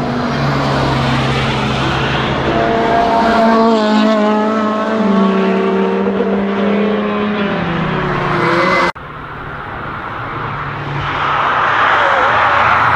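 Several cars driving hard through a racetrack bend, their engines overlapping and rising and falling in pitch as they rev and shift. After an abrupt cut near nine seconds, another car approaches and passes, growing louder near the end.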